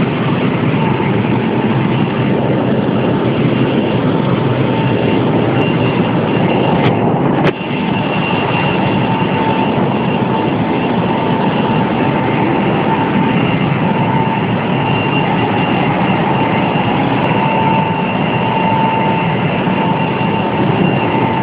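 Cooling tower running: a loud, steady rush of falling water and fan noise, with a thin steady whine through it. A brief dip about a third of the way in.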